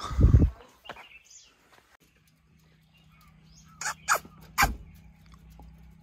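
A low thump at the start, then three sharp taps on a wire cage a little past halfway, as a caged parakeet moves about on the metal mesh.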